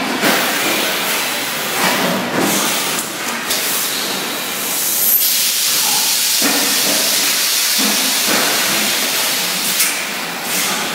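Semi-automatic 20 L bottle blow-moulding machine: a few clunks in the first seconds, then a long, loud hiss of compressed air from about three and a half seconds in until near the end.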